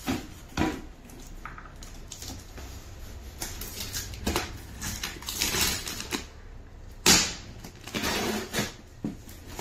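Packing tape on a cardboard shipping box being slit with a knife and pulled away, an irregular scraping and crackling of tape and cardboard, with one sharp, louder rasp about seven seconds in.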